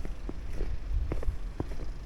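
Footsteps crunching in snow, irregular steps a few times a second, over a steady low rumble.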